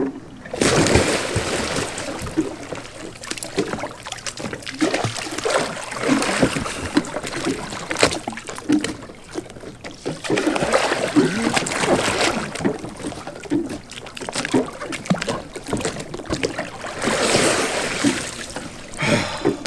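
Water splashing and sloshing as a sea kayak is capsized and rolled back upright with a wooden Greenland paddle in a swimming pool. The heaviest splashing comes about a second in as the boat goes over, and again near the end as it comes back up.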